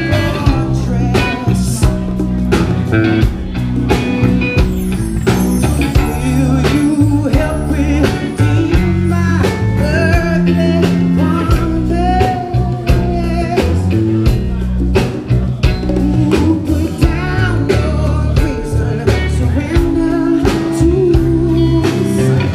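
A band playing blues-rock live and amplified: electric bass, drum kit and keyboard, with a singer's voice over them.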